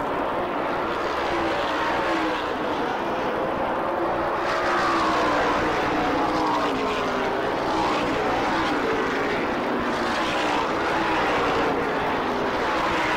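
NASCAR Modified race cars' V8 engines running flat out on the track, a continuous loud drone. Several engine notes glide up and down in pitch as cars pass by.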